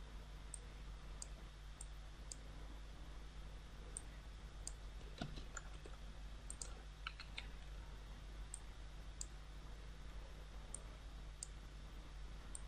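Computer mouse buttons clicking now and then, short sharp ticks at irregular intervals, over a steady low electrical hum.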